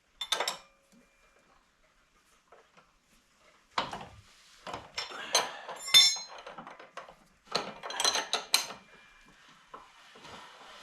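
Metal hand tools and parts clinking and clattering: a brief clink at the start, then a busy run of knocks and ringing metal hits for about five seconds.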